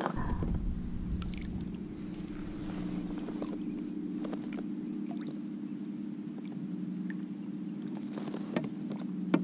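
Steady low engine hum, with a few light clicks and one sharper tick near the end.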